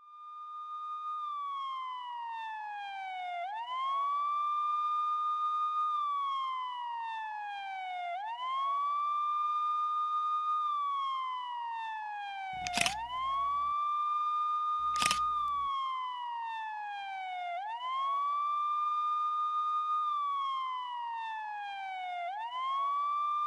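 Police siren wailing: its pitch climbs quickly, holds, then slides slowly down, over and over about every five seconds. Two sharp knocks sound about halfway through, a couple of seconds apart.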